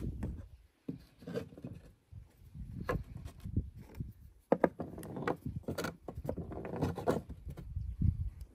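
An ignition coil and small steel sleeves handled and set down on a wooden tabletop: irregular light knocks and rubbing.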